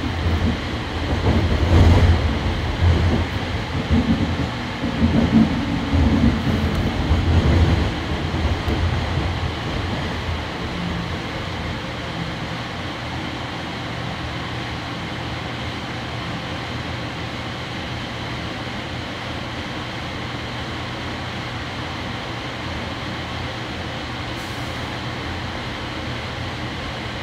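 AirTrain JFK train running along its guideway, heard from inside the car: uneven rumbling with several knocks for about the first eight seconds, then a steady running noise.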